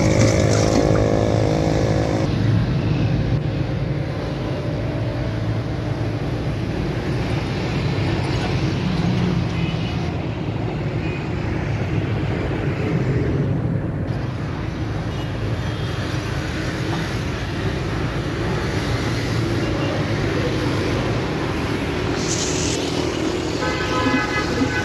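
Steady road traffic noise: cars and motorcycles running past.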